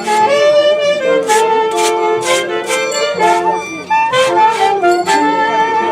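Live orchestra music: saxophones and other wind instruments play a melody together over regular percussion hits.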